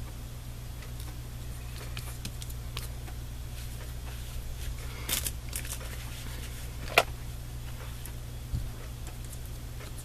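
Faint rustling of a paper cut-out being pressed down onto a card by hand, over a steady low hum. There is a sharp click about seven seconds in and a soft knock shortly after.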